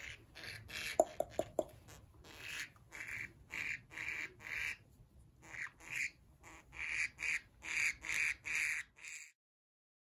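A yellow budgerigar, gripped in the hand for claw trimming, gives a long run of short, harsh squawks, often about two a second: the protest of a restrained budgie. A few sharp clicks come about a second in. The squawks stop abruptly near the end.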